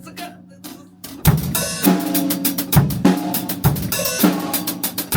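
Drum kit played in a rehearsal room: a few light taps, then about a second in a beat with bass drum, snare and cymbals.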